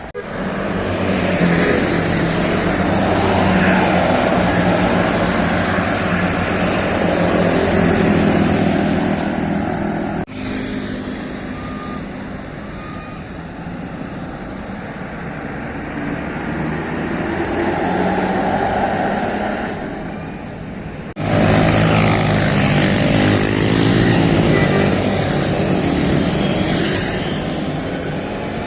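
Large tour buses passing close by, their engines running with a rush of noise that swells and fades as each goes past. Three separate passes are joined by sudden cuts, about ten and twenty-one seconds in.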